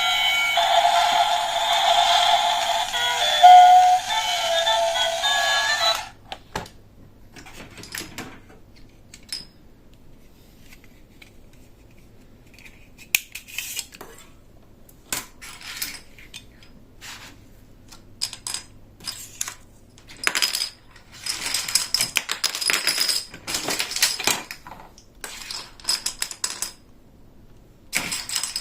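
Background music that cuts off about six seconds in, followed by scattered light clicks and rattles of plastic toy pieces being handled and unpacked, busier near the end.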